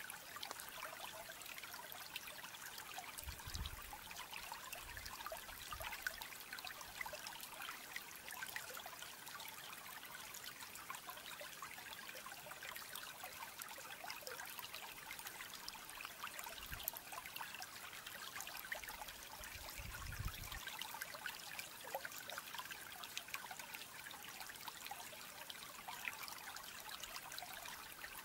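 Faint, steady trickle of running water, dotted with many small ticks.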